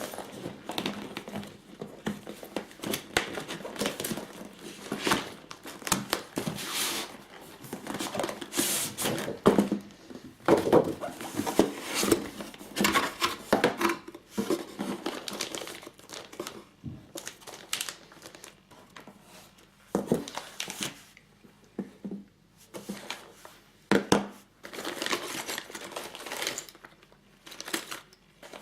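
Plastic and paper packaging crinkling and rustling in irregular bursts as it is handled and unwrapped by hand, with a few sharp clicks; the handling goes quieter for a few seconds past the middle.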